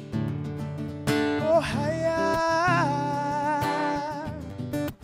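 Cort cutaway acoustic guitar strummed, with a man's voice singing long, wavering held notes over it from about a second in.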